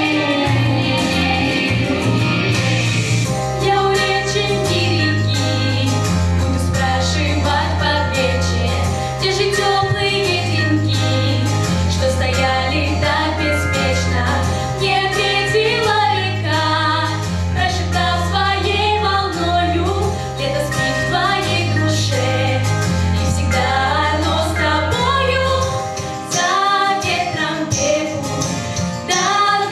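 A vocal ensemble singing a pop song with female voices over a steady band backing with a bass line; the bass drops out briefly near the end.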